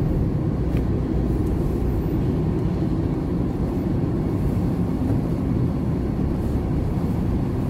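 Steady low road and engine noise of a car being driven, heard from inside the cabin.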